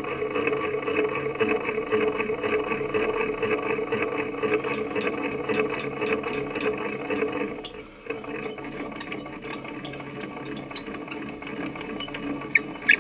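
Grizzly G0463 benchtop milling machine's spindle motor running with a steady whine as the end mill is raised out of the cut. The whine cuts out about eight seconds in, leaving a fainter hum, and a few sharp clicks come near the end.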